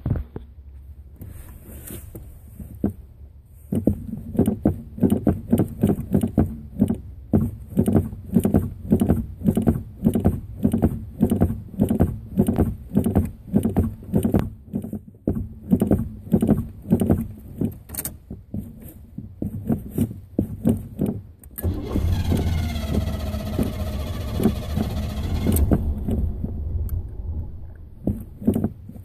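Car engine cranking on the starter in a hard start after the tank was filled, with a rhythmic beat of about two turns a second. About two-thirds of the way through, it catches and runs steadily for about four seconds, then falls back to cranking.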